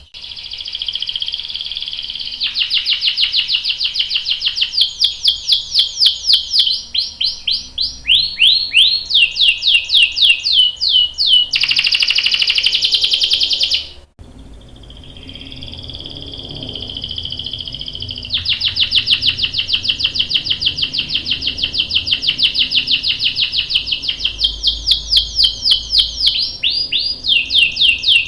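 Domestic canary singing long rolling trills of fast repeated high notes. About halfway through, the song breaks off abruptly, then starts again softly and builds back into fast rolls.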